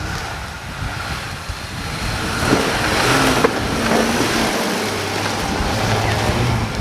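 A vehicle driving, its engine hum mixed with wind and road noise that grows louder about two and a half seconds in.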